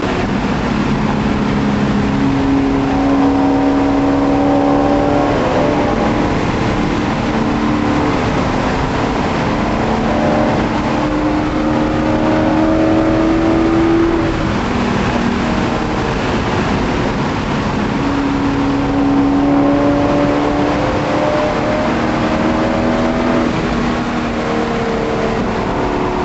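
Corvette Z06's V8 heard from inside the cabin while driving at road speed. Its note climbs slowly and drops back several times, over steady road and wind noise.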